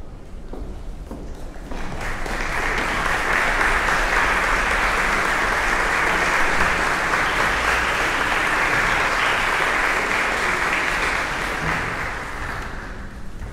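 Concert audience applauding; the applause starts suddenly about two seconds in, holds steady, and dies away near the end.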